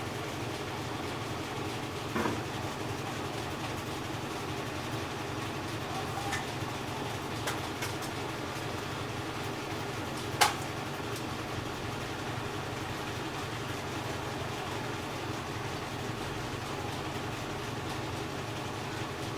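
GE EcoPerformance 15 kg washing machine spinning its load: a steady motor-and-drum hum, swaying within normal limits, with a few light knocks and one sharp click about ten seconds in.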